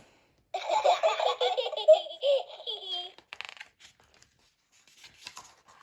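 A sound-book button playing a recorded cartoon child's giggle, a bubbly run of giggling lasting about two and a half seconds, thin-sounding through the book's small speaker.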